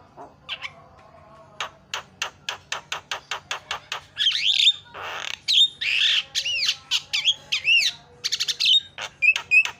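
Javan myna singing: a fast run of dry clicks at about five a second, then harsh rasping squawks mixed with looping whistles, ending in a quick series of short repeated notes.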